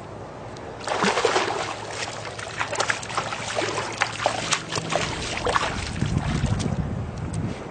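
Water splashing and sloshing in irregular bursts, starting about a second in, with low wind rumble on the microphone from about five seconds in.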